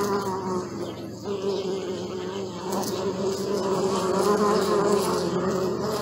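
A bee buzzing in flight, a wavering hum that starts abruptly, dips about a second in, then holds steady and grows a little louder.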